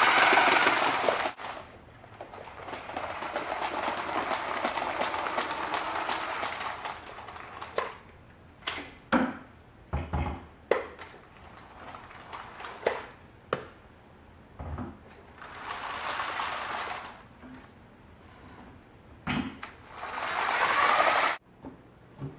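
LEGO 9V train motor running the wagons along plastic track in stretches, with a series of sharp knocks and clunks in between as the plastic peanut butter jars on the wagons are handled.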